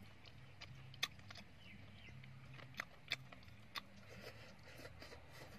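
Quiet eating with wooden chopsticks from a wok: four or five sharp separate clicks spread over a few seconds, over a faint low hum.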